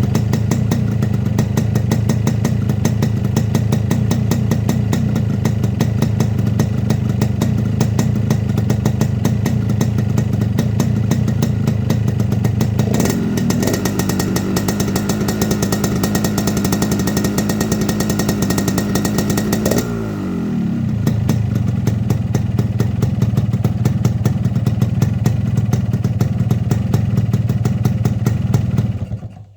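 Yamaha RX-King 135 two-stroke single-cylinder engine running through a modified air filter, giving the deep 'ngorok' snoring intake growl typical of Medan builds. It runs steadily, picks up speed suddenly about 13 seconds in, drops back with a falling pitch about 20 seconds in, and cuts off just before the end.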